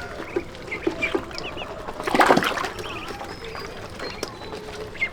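Chickens clucking with small birds chirping, and a short, louder rustling or scraping burst about two seconds in.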